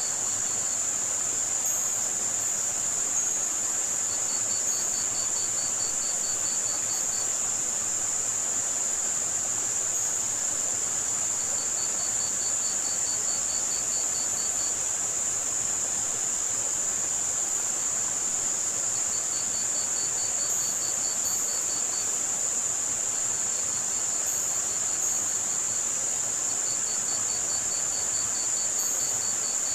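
Crickets chirp in trains of two to three seconds, about five chirps a second, recurring every several seconds. They are layered over a steady high-pitched white-noise hiss and a softer rushing of running water, with brief high chirps now and then.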